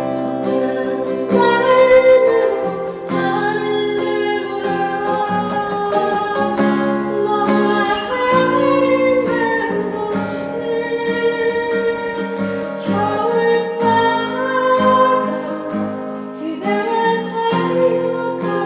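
Acoustic guitar playing a slow melody with chords, notes plucked and left to ring.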